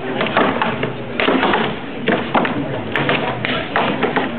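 Axes chopping into wood, many irregular overlapping strikes from several choppers at once, with voices in the background.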